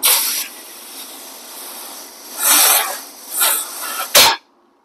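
Compressed air hissing from an air hose pressurizing the crankcase of a 1968 Moto Guzzi V7 700 engine to find where it leaks, in several loud blasts over a steady hiss. A sharper blast comes near the end, then the hiss cuts off.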